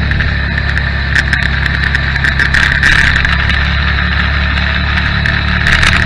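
Motorcycle engine running at a steady cruising speed, heard through a bike-mounted camera: a low, even drone with wind noise over it and frequent small clicks and rattles.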